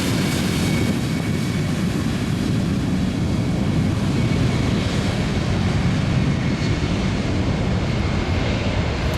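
Embraer E-Jet airliner's turbofan engines at full takeoff power, a steady loud roaring with jet hiss, the highest hiss thinning slightly near the end.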